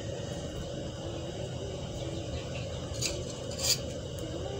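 Bread omelette frying in an oiled pan: a steady low background, with two short scrapes of a metal spatula against the pan about three seconds in.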